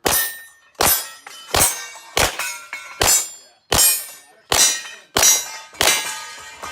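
A pistol fired in a quick string of about ten shots, each followed by the ringing clang of a steel popper or plate being hit.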